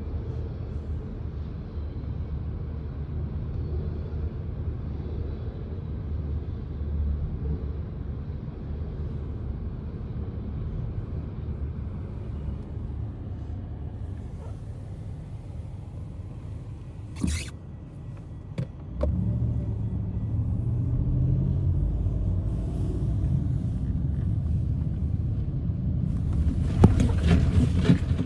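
Low, steady vehicle rumble. About two-thirds of the way through there are two sharp clicks, and after them the rumble grows louder.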